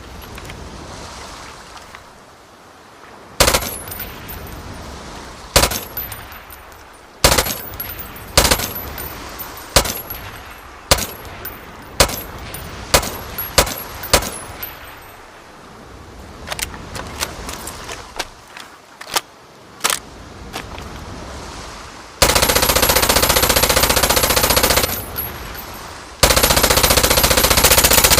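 PPSh-41 submachine gun firing: a string of single shots and short bursts, then two long full-automatic bursts near the end.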